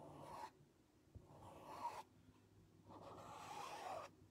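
Three faint soft scraping strokes of a small squeegee drawn across a stencil on a painted board, smoothing the paint through it.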